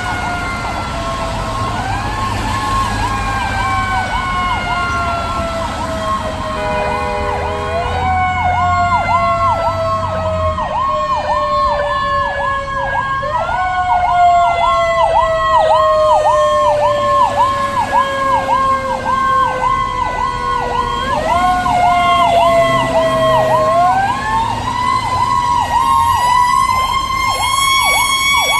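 Fire engine's sirens while responding: a rapid electronic yelp warbling about twice a second over a second siren whose pitch slowly falls and is repeatedly pushed back up. A brief air-horn blast comes about seven seconds in, over the low rumble of the engine.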